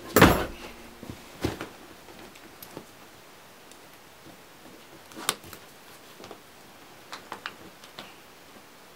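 A canvas rucksack is set down upright on a wooden plank floor with a loud thump just after the start, followed by scattered clicks and light rattles of its leather straps and metal buckles being handled and fastened.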